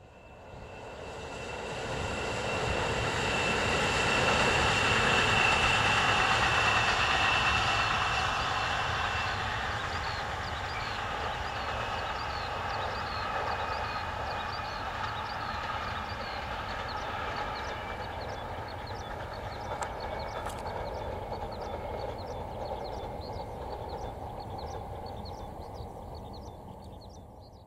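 JR Shikoku 7200 series electric train running past on the rails. A rumble with a high steady whine builds over the first few seconds, then slowly fades as the train draws away.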